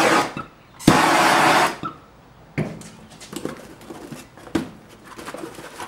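Packing tape on a cardboard box being torn: a loud rasping rip that starts sharply about a second in and lasts under a second. Then the cardboard flaps crackle and click as the box is pulled open.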